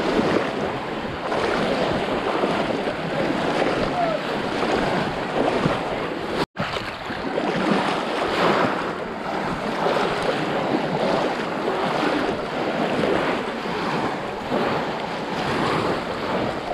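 Continuous splashing and churning of shallow river water as many people wade through it, plunging bamboo fish traps and dragging nets. The sound cuts out completely for an instant about six and a half seconds in.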